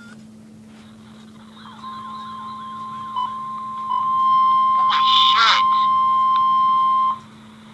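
NOAA Weather Radio receiver sounding its steady 1050 Hz attention tone for about five seconds, louder from about four seconds in, then cutting off suddenly. A wavering warble sounds under the tone at first. The tone signals that a warning-level alert follows, here an Immediate Evacuation.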